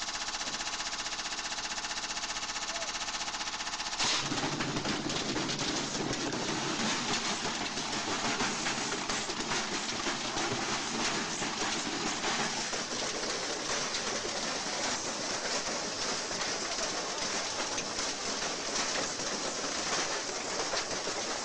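Front-loading washing machine on a fast spin, at first a steady whine. From about four seconds in it turns to a continuous violent banging and rattling as the badly unbalanced machine shakes itself apart and its casing breaks up.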